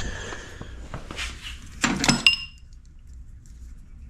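Metal hand tools being handled and clinking together: light rustling, then a quick cluster of sharp clinks with a brief metallic ring about two seconds in.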